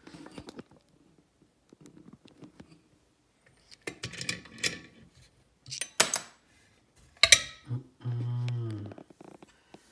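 Metal clicks and clinks as a Kwikset SmartKey lock cylinder is handled, the pick is pulled from its keyway and the cylinder is freed from a lock vise. There is a sharp knock about seven seconds in, the loudest of them, and a brief low pitched sound just after it.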